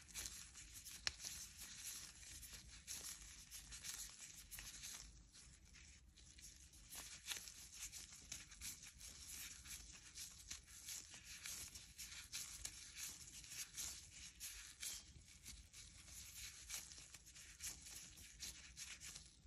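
Faint crinkling and rustling of thin plastic gloves squeezing and rolling moist grated cassava dough into balls, heard as many small irregular crackles.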